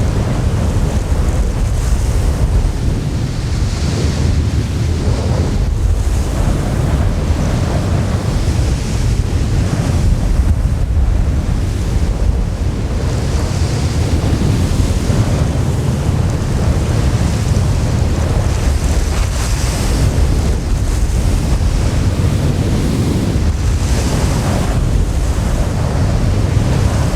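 Windstorm blowing hard and continuously with a deep rumble, gusts swelling and easing every few seconds.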